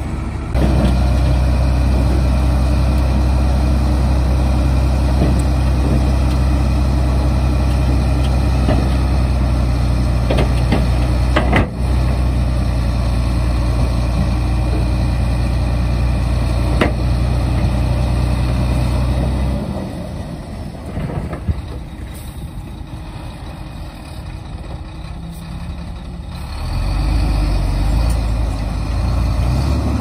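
Heavy dump truck's diesel engine running at steady high revs while the tipper body raises and the load of soil pours out, with a couple of sharp knocks. The engine drops away about two-thirds of the way through, then comes back loud near the end.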